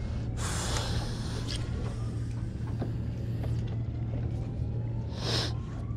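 A boat motor humming steadily, with gusts of wind buffeting the microphone, one long gust near the start and a short one about five seconds in.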